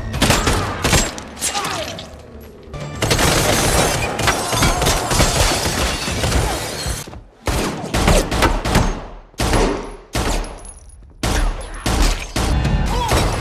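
Action-film fight soundtrack: gunfire and blows with shattering glass over background music, coming in dense bursts broken by a few short lulls.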